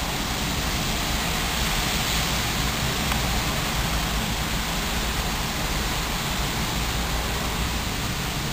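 Steady, even hiss with no other sound standing out.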